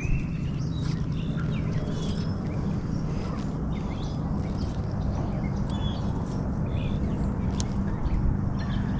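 Birds chirping and calling, with many short scattered chirps and whistles, over a steady low hum.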